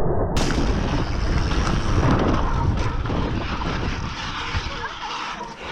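Mountain bike tyre skidding on a dirt trail under hard braking: one long continuous scrape that slowly fades as the bike comes to a stop.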